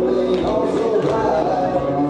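Country dance music with singing, played over the hall's sound system.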